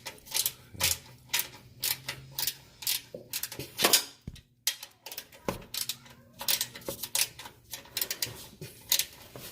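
Irregular sharp metallic clicks and clinks of hand tools being worked on a vehicle's underside, about two or three a second.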